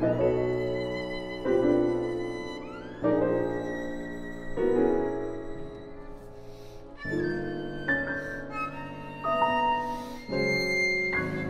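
Viola and Steinway grand piano playing a contemporary classical duo. Piano chords are struck about every second and a half, each dying away under held viola notes, with a rising slide about three seconds in. After a short lull the chords come quicker and higher.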